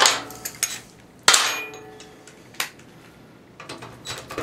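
A loose steel part striking the metal workbench: one sharp, ringing metallic clang about a second in, with lighter clinks before and after it.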